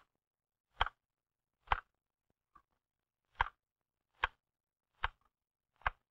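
Manual typewriter keys struck one at a time at a slow, even pace, about seven sharp clacks a little under a second apart. It demonstrates a stroking form that the narration says will never make a good, fast typist.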